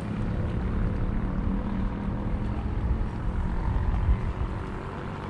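Steady low motor drone with a rough rumble underneath, a little louder about four seconds in.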